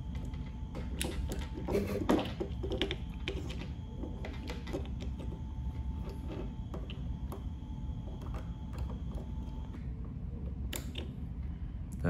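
Small clicks and rustles of hands handling a red cable and limit switch parts, over a steady low hum.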